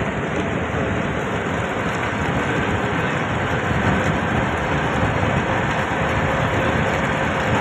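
Muddy river in flood rushing past, a loud, steady wash of water noise.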